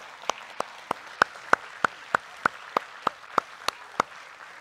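Congregation applauding, with one set of close claps standing out at an even pace of about three a second; the claps stop shortly before the end as the applause dies down.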